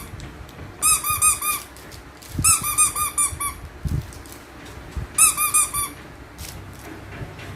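A squeaky rubber toy squeezed in three quick runs of high squeaks, five or six squeaks each, with a few soft bumps in between.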